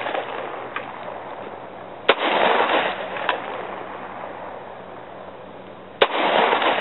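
Two handgun shots about four seconds apart, each followed by a rolling echo that dies away over about a second.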